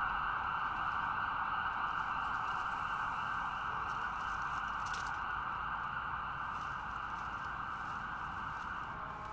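Distant ambulance siren sounding steadily, slowly fading away.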